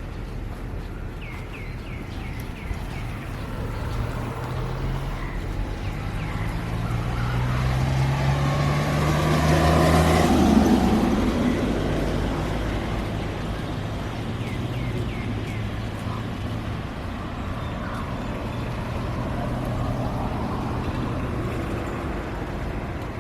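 A motor vehicle drives past. Its engine grows louder and rises slightly in pitch as it approaches, is loudest about ten seconds in, then fades away. A few short bird chirps come near the start and again midway.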